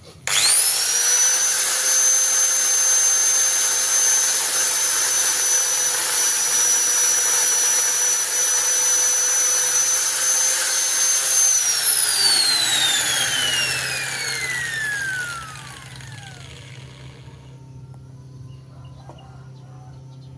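Electric hand planer switched on, running at a steady high whine for about eleven seconds, then switched off and winding down, its pitch falling over about five seconds.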